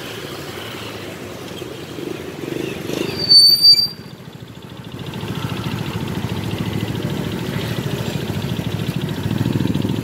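Motorbike and scooter traffic running past, with a nearby motorbike engine pulsing more loudly in the second half. About three seconds in, two short, shrill, high-pitched tones stand out as the loudest sounds.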